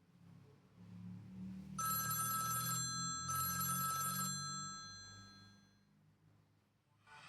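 Samsung Wave 533 phone tone imitating a telephone bell: two rings, each about a second long, the second fading out over a couple of seconds.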